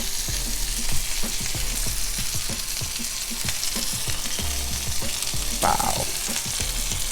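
Smoked sausages and bacon jam sizzling in a hot pan: a steady frying hiss with many small crackles and pops.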